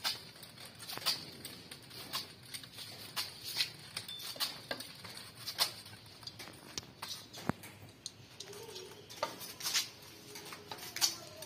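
Scattered light clicks and taps, a few a second at irregular intervals, like small hard objects clinking, with faint brief tones in the background.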